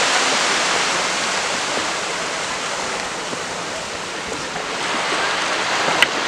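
Steady rushing wash of gentle surf on a sandy beach, with one sharp click about six seconds in.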